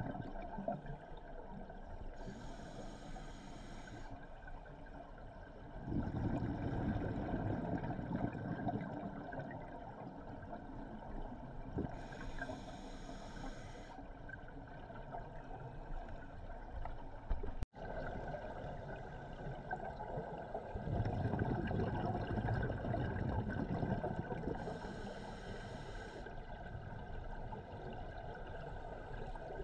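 Scuba diver breathing through a regulator underwater: three short hissing inhalations and, between them, two longer low rushes of exhaled bubbles.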